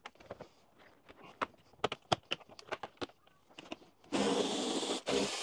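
Light clicks and knocks of a plastic tray and tools being handled, then about four seconds in a small cordless electric screwdriver starts running steadily, backing out a 10 mm bolt. It stops for a moment just before the end.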